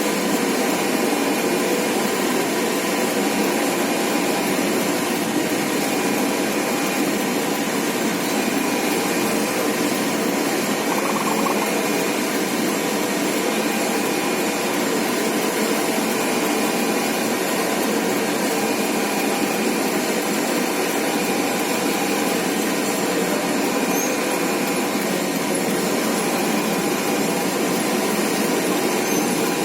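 Steady rushing noise at a railway level crossing, with a faint tone that sounds briefly and repeats about every two seconds, in keeping with the crossing's warning signal.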